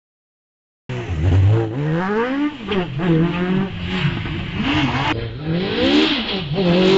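Legend car's Yamaha four-cylinder motorcycle engine revving hard under acceleration, its pitch climbing in long sweeps and dropping sharply again and again as it shifts up through the gears. The sound cuts in suddenly about a second in.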